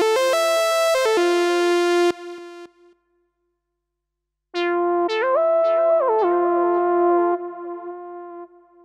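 Roland FA-series synthesizer workstation playing synth lead tones: a short phrase of stepping notes on the Saw Lead 1 tone that stops about two seconds in. After a pause, a second phrase on the Saw Lead 23 tone, its notes gliding between pitches, fades out near the end.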